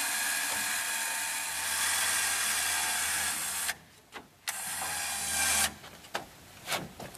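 Electric hoist motor running as it lowers a heavy burl on its chain. It stops a little over three and a half seconds in, runs again for about a second, then stops.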